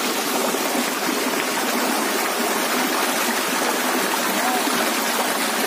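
Shallow stream flowing over rock slabs and stones: a steady, even rush of water.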